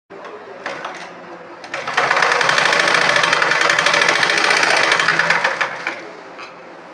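Sewing machine stitching at speed for about four seconds, starting about two seconds in and running down to a stop near six seconds, after a couple of single clicks.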